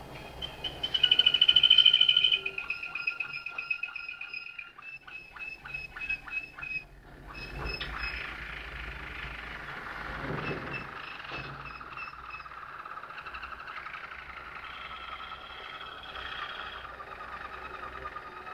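Malinois (Waterslager) song canary singing: held whistled notes and rapid rolling trills, loudest in a high passage about a second in, then softer rolling phrases.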